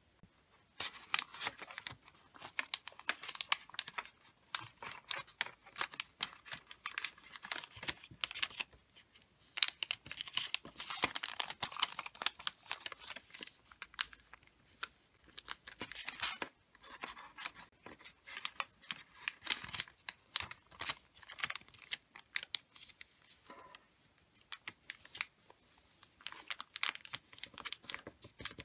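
A sheet of wrapping paper rustling and crinkling as it is folded by hand, with crisp scrapes as fingers press and run along the creases. The sounds come in irregular spells with short pauses between them.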